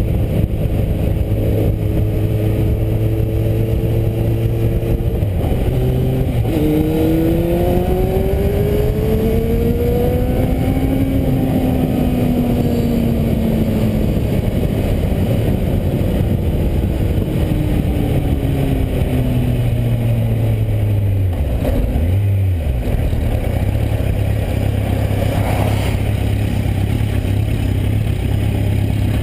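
Kawasaki Z750 inline-four engine through a Scorpion aftermarket exhaust: steady cruising, then a dip at a downshift about five seconds in, then hard acceleration with the note rising, then a long deceleration with the note falling, settling into a steady idle for the last third as the bike stops. Wind rush over the handlebar-mounted camera runs underneath.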